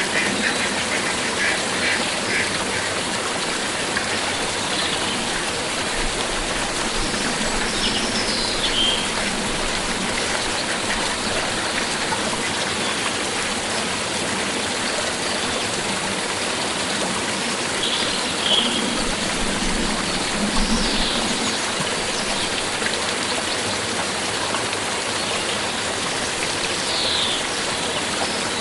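A flowing stream rushing steadily, with a few short, falling bird calls scattered over it.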